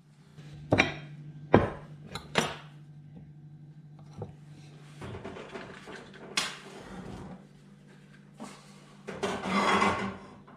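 Cookware and utensils being handled on a kitchen counter: three sharp knocks early, a scatter of scraping and clattering, and a longer clatter near the end, over a steady low hum.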